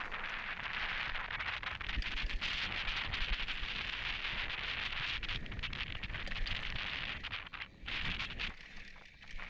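Mountain bike riding fast down a dry dirt trail: tyres hissing and crunching over loose gravel and dirt, with the bike rattling and wind buffeting the microphone. The noise quietens near the end.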